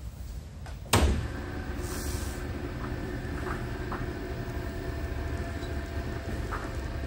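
A sharp clunk about a second in, then the JFMT lathe running steadily with a low hum and a faint whine, moving its carriage along the bed.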